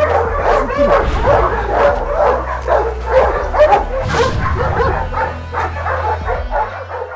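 Several large caged Tosa dogs barking over one another, a dense run of short barks and yelps several a second with no let-up.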